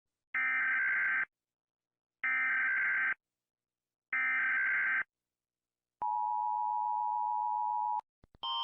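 US Emergency Alert System broadcast: three one-second bursts of SAME header data screech, a second apart, followed by the two-tone attention signal, a steady dual tone, held for about two seconds and then cut off abruptly. A couple of clicks and a different alarm tone start just at the end.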